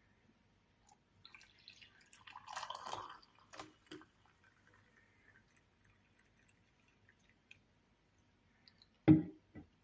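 Liquid dripping quietly, with scattered light clicks and a louder knock near the end.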